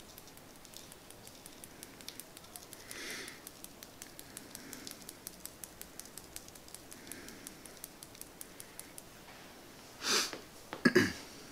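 Light, quick taps of a small plastic spoon, about three or four a second, sprinkling fine dirt onto glued model scenery, with a few soft breaths through the nose and a louder noise near the end.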